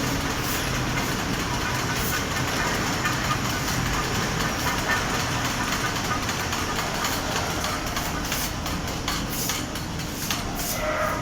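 Large automatic fabric spreading machine running, a steady mechanical noise.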